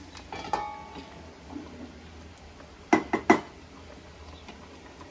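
Metal kitchenware being handled: a clink with a short ring about half a second in, then two sharp knocks close together about three seconds in, over a faint steady low hum.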